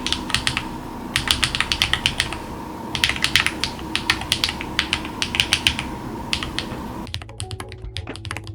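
Typing on a mechanical keyboard with GATERON Jade Delta Dark magnetic switches and PBT Cherry-profile keycaps: quick keystrokes in bursts of about a second with short pauses between. About seven seconds in, the background hum drops out and the keystrokes go on more quietly.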